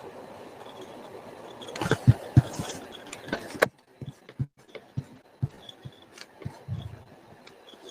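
Irregular soft thumps and clicks of typing on a keyboard and clicking a mouse, picked up by a video-call microphone, with the background hiss cutting off suddenly partway through as the call's noise suppression gates it.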